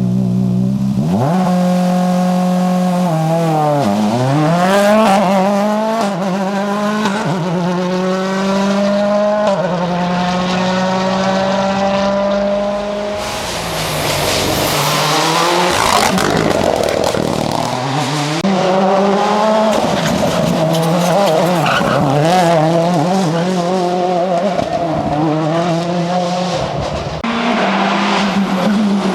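Ford Fiesta RS WRC's 1.6-litre turbocharged four-cylinder engine driven hard at rally pace: revs climb through the gears with a quick drop in pitch at each upshift, then rise and fall with rougher, noisier running through the middle as the driver lifts and accelerates again.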